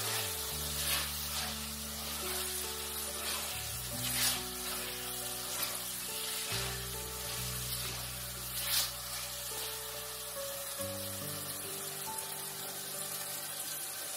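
Mutton pieces sizzling as they fry in hot oil in a clay handi, with the spatula now and then clicking against the pot, about four and nine seconds in. Background music with long held notes plays under the sizzle.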